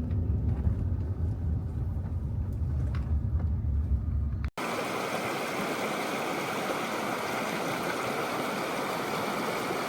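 A vehicle's low rumble for about four and a half seconds. Then an abrupt cut to the steady rush of a waterfall.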